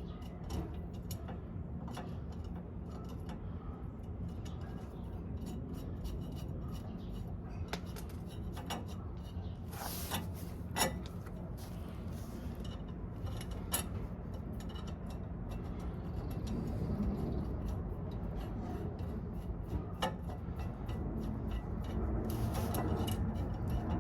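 Scattered small metallic clicks and clinks of washers and nuts being put on and threaded by hand onto the leaf-spring U-bolts, over a steady low hum.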